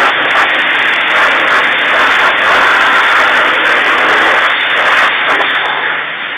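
Self-service jet wash lance spraying shampoo at high pressure onto a car's bodywork: a steady, loud hiss of spray that eases off near the end.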